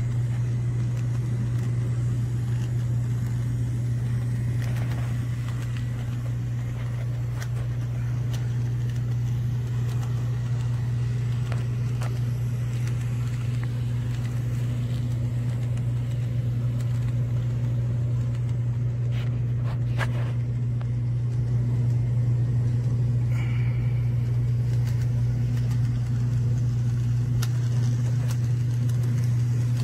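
Model train running on its track: a diesel locomotive pulling a hopper car, giving a steady low hum with a few faint clicks.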